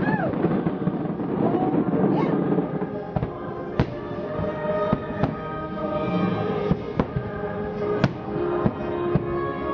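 Aerial firework shells bursting in a string of sharp bangs, roughly one every second or two from about three seconds in, over music playing with long held notes.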